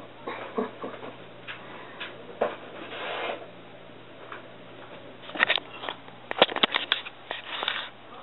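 Handling noise of a cardboard box and the camera being moved about: rubbing and scraping, then a quick run of sharp clicks and knocks in the last few seconds.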